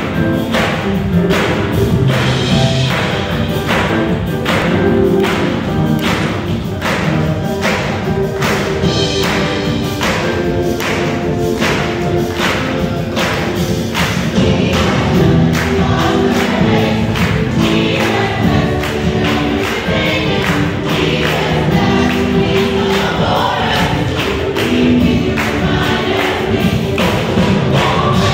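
Choir singing a gospel processional hymn with a steady beat of hand claps about twice a second, most marked in the first half.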